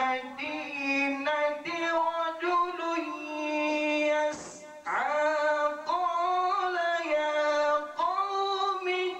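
A male qari chanting Quran recitation (tilawat) in a high, melodic voice, drawing out long held notes that bend and waver in pitch. There is a short break for breath about four and a half seconds in, after which the voice swoops back up into the next phrase.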